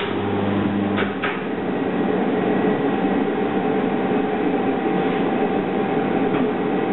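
A short-circuit current of about 11 kA runs for one second through an earthing clamp and 70 sq mm aluminium cable, heard as a deep, steady hum. About a second in the hum cuts off with two sharp clicks. A loud, steady mechanical noise from the test rig continues throughout.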